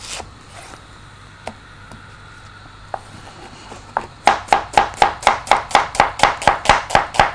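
Kitchen knife chopping an onion on a wooden cutting board: a few scattered taps, then from about four seconds in a fast, even run of chops, about five a second.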